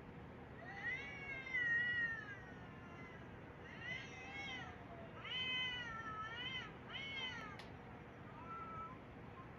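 Cats meowing: a long drawn-out meow, then a run of shorter meows in quick succession and a fainter one near the end, with a brief click among them.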